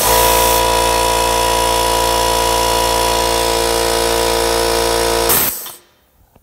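A small portable air compressor's electric motor kicks on and runs with a steady hum and whine while air hisses out through the hose and spray gun. Both stop suddenly about five and a half seconds in.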